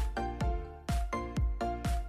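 Background music with a steady beat, about two beats a second, and a melody over it.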